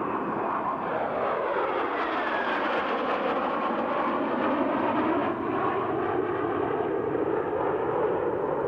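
A formation of F-4 Phantom jets, each with twin J79 turbojets, flying past with steady, loud jet noise. The tone sweeps down and then back up as they pass.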